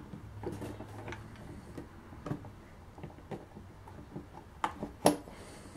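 Hard plastic clicks and taps as a toy outboard motor is handled and clipped onto the stern of a plastic toy raft, with a sharper snap near the end.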